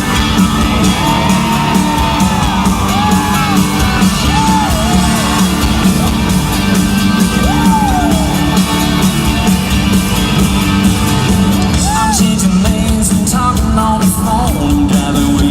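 Live country-rock band playing loudly at a concert, with singing and the crowd whooping and shouting over the music.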